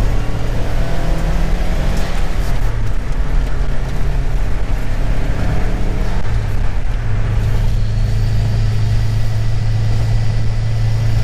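Car engine and road noise heard from inside the cabin while driving. The engine pitch rises over the first couple of seconds, then settles into a steady hum from about seven seconds in.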